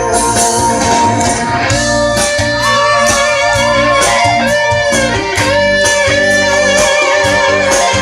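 Live band playing an instrumental passage: a lead guitar melody with bends and vibrato over a steady drum beat.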